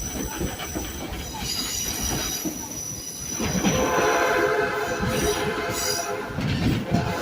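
Excursion train rolling on its track with wheels squealing, then from about three and a half seconds in a long, steady horn blast that is still going at the end.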